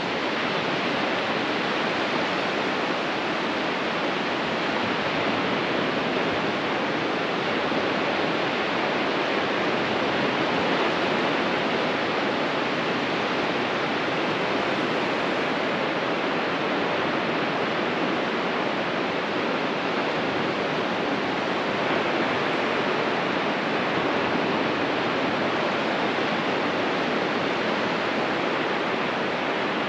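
Ocean surf breaking on a beach, a steady even wash with no single wave crashes standing out.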